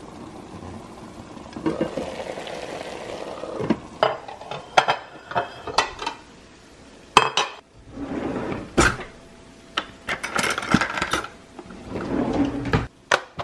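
Kitchen clatter: ceramic plates and metal utensils clink and knock in a series of sharp, irregular hits, with a utensil drawer rattling open near the end.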